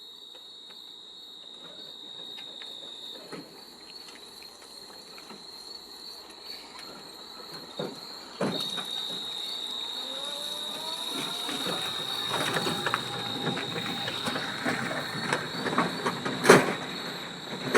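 Insects trilling steadily in one high, thin tone, which drops out for a few seconds early on and then returns. Scattered clicks and rustling grow louder through the second half, with a sharp knock near the end.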